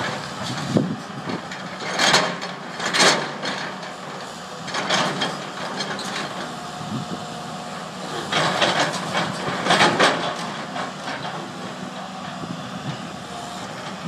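Link-Belt hydraulic excavator with a demolition grapple working a pile of rubble and steel beams: its engine runs steadily while debris clatters and scrapes several times as the grapple digs and drops material.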